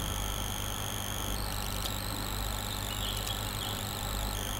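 Steady low electrical hum with a faint, constant high-pitched whine and hiss: background noise of the recording setup between spoken lines.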